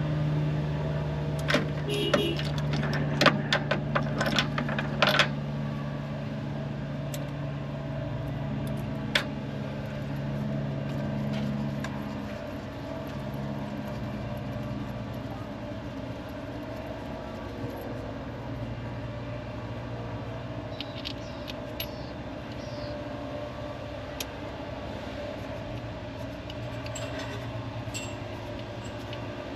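Metal hand tools and engine hardware clinking and clicking in short bursts, over a steady low mechanical hum that drops in pitch about twelve seconds in.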